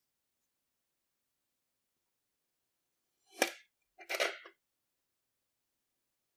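A knife slicing through a moulded kinetic sand castle. About three seconds in there is a sharp click, then a short crumbly crunch as the sand gives way.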